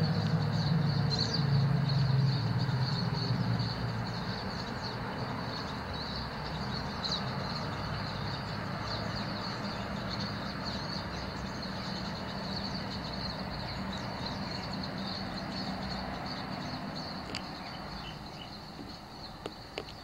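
A flock of finches twittering and chirping continuously, many birds calling at once. Under it a low, steady engine hum, loudest over the first few seconds, then fading.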